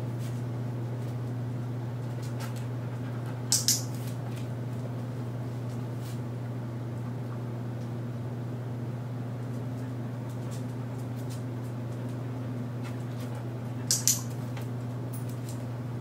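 A dog-training clicker sounding twice, each a sharp double click (press and release), about ten seconds apart, over a steady low hum.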